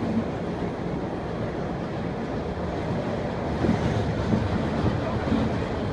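Subway train in motion, heard from inside the car: a steady low rumble of wheels on track, with a few short louder knocks in the second half.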